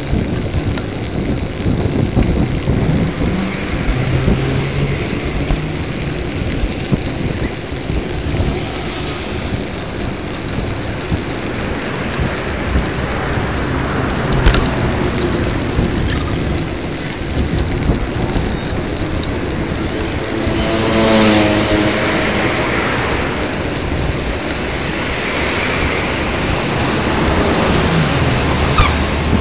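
Steady wind buffeting and road rumble on the microphone of a bicycle-mounted action camera during a street ride, with traffic going by. About two-thirds of the way through, a passing vehicle's engine climbs in pitch.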